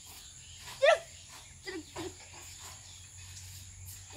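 A small child's brief high squeal about a second in, then two short babbled sounds, over a steady high insect trill.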